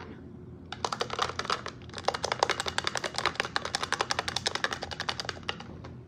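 A small plastic dinosaur toy rattling inside a small plastic box as the box is shaken: rapid clicking knocks of plastic on plastic. There is a short bout about a second in, then a longer one from about two seconds in until near the end.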